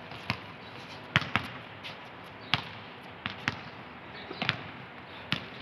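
Basketball bouncing on a hard court: about eight sharp, irregularly spaced thuds.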